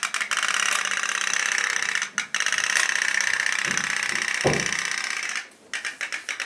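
Candle-heated pop-pop (putt-putt) toy boat's steam engine running with a rapid, steady rattling putter. The putter breaks off briefly twice, and there is a short low sound about four and a half seconds in.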